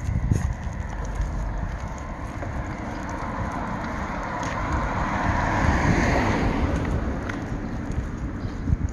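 Outdoor walking ambience with a low wind rumble on the microphone and scattered footstep clicks. Around the middle, the hiss of car tyres on a wet road swells and fades as a car passes.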